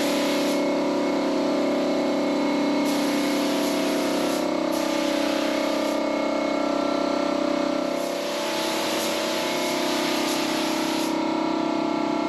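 Air-fed gravity-cup paint spray gun hissing in bursts of one to three seconds as the trigger is pulled and let go, over steady background music.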